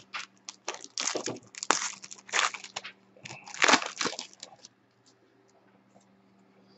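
Foil trading-card pack wrapper being torn open and crinkled by hand, in a run of sharp crackling rustles that stops about four and a half seconds in.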